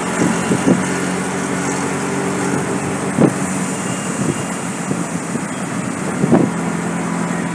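Vehicle engine running steadily, with road and traffic noise, heard from inside the moving vehicle. A few brief knocks break through.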